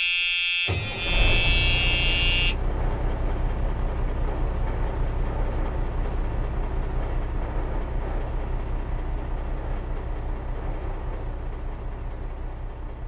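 A vehicle horn sounds for about two and a half seconds. Under it, about a second in, a low, evenly pulsing engine rumble starts, runs on and slowly fades away.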